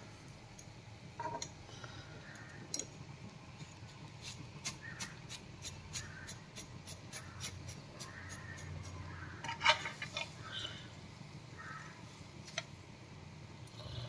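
A metal spatula clicks and scrapes against the pan while dry vermicelli is stirred, giving a run of light ticks. The loudest knocks come about ten seconds in.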